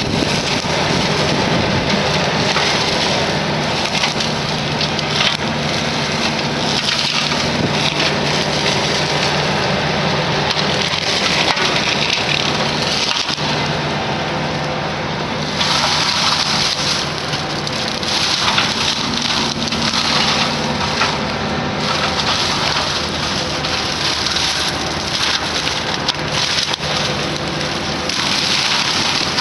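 Excavator-mounted brush mower head grinding through shrubs and small trees, with wood cracking and splintering over the steady drone of the excavator's diesel engine. The grinding grows louder and harsher about halfway through.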